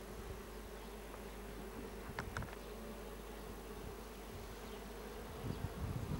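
Honeybees humming steadily on a comb frame lifted out of an open hive. A couple of short clicks come about two seconds in, and a few low bumps near the end.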